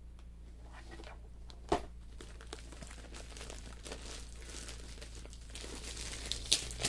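Packaging being handled while a kit box is opened: crinkling and rustling that gets busier in the second half, with a couple of sharp clicks.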